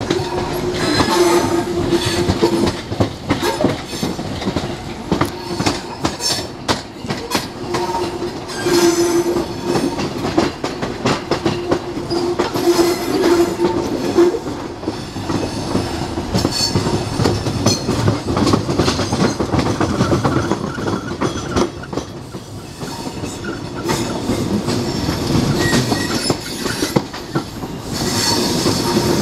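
An HST train with Class 43 power cars, heard through an open coach window as it rolls over pointwork and rail joints: a dense run of wheel clicks and clatter, with a steady droning tone that comes and goes.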